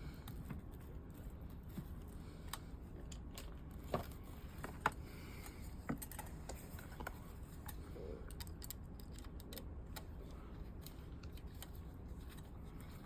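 Scattered light clicks and taps of small parts and tools being handled, with a few sharper clicks around four to six seconds in, over a steady low hum.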